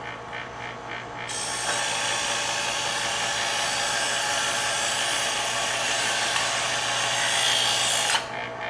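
Chef's Choice electric knife sharpener motor running, with a steel blade ground against the abrasive discs of the stage-3 polishing slot. The loud grinding hiss starts about a second in and stops near the end as the blade is lifted out, leaving the motor's hum.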